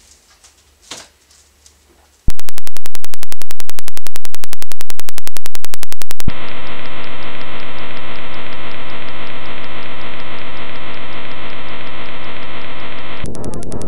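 Harsh electronic noise from a homemade image-to-sound circuit. After a few faint clicks it cuts in loudly about two seconds in as a rapid, even pulsing buzz. About six seconds in it switches abruptly to a denser, duller buzz, and it changes again near the end.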